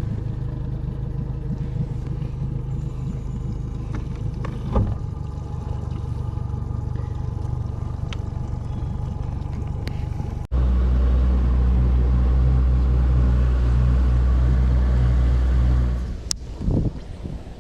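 Outboard motor of a small aluminium bass boat running steadily under way. About ten seconds in it changes abruptly to a louder, deeper steady drone, which drops away about sixteen seconds in.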